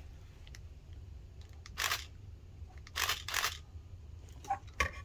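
Nikon D80 digital SLR's shutter and mirror firing: one short snap about two seconds in and a double snap about a second later, with a few small handling clicks near the end.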